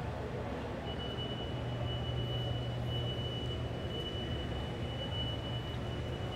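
Steady background noise of a large exhibition hall with a low hum. A thin, high steady tone comes in about a second in.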